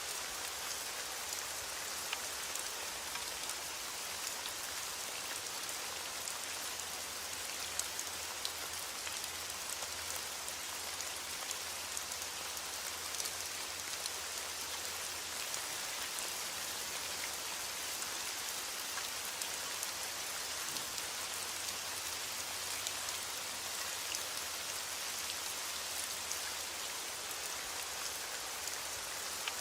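Steady rain falling on a surface, an even hiss dense with individual drop ticks, a few slightly louder drops about eight seconds in.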